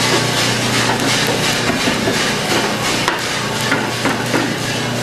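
Freshly roasted coffee beans pouring out of a drum roaster's door into its cooling tray, a dense rattle of beans over the steady hum of the roaster's fan and stirring arms. The stream thins past the middle, leaving more separate clicks of single beans.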